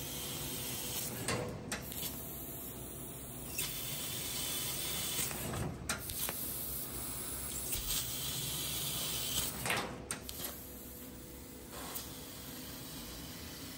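OREE Laser CNC fiber laser cutting steel plate: the assist gas hisses in stretches of one to two seconds as the head cuts, dropping back between cuts, with several sharp clicks.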